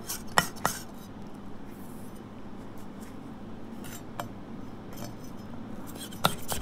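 Chef's knife chopping fresh ginger on a wooden chopping board, the blade knocking sharply on the wood. There are three quick strikes at the start, a few scattered ones in the middle and another quick run near the end.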